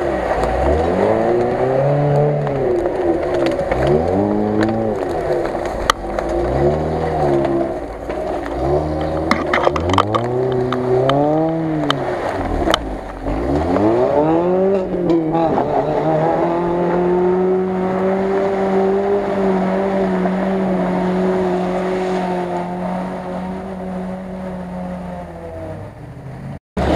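Lada Niva's engine revved hard over and over, rising and falling about every two seconds as the car fights through deep mud, then held at high revs for about ten seconds, slowly sagging. A few sharp cracks come in the first half.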